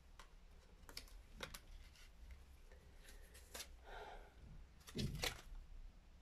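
Tarot cards handled on a cloth-covered table: a few faint taps and clicks of card stock as cards are picked up and laid down, the loudest cluster about five seconds in.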